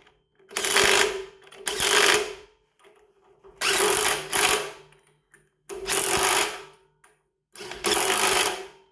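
Cordless impact tool tightening the brass valve caps on a pressure washer's triplex pump: five short, loud bursts of hammering, each under a second to about a second and a half, with brief pauses between them.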